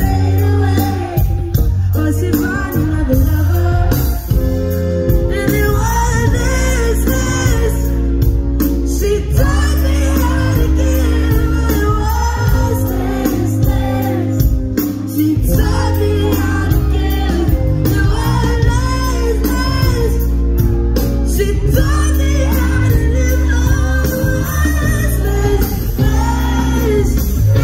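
Live band music with a woman singing lead over a heavy bass line, heard from within the audience at a loud club concert.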